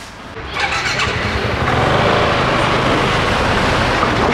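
Yamaha TMAX 560 scooter's parallel-twin engine starting about half a second in, then running at a steady idle.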